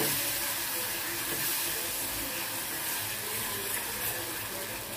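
Chopped onions and aromatics sizzling in hot oil with tomato, chilli and soy sauces, stirred with a silicone spatula in a nonstick kadai: a steady, even hiss.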